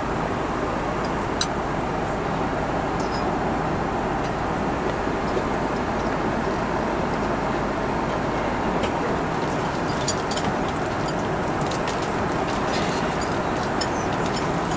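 Steady cabin noise of an Airbus A330-202 airliner in flight: an even, constant rush of engine and airflow noise. A few faint light ticks sound over it in the second half.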